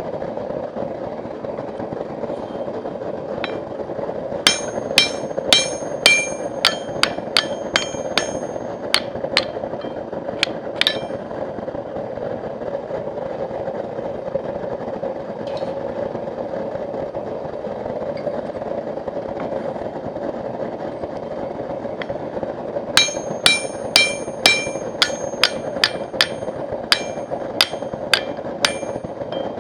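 Blacksmith's hammer striking steel on an anvil, each blow ringing, in two runs of about two to three blows a second: one from about four to eleven seconds in and another starting about twenty-three seconds in. A steady rushing noise runs underneath throughout.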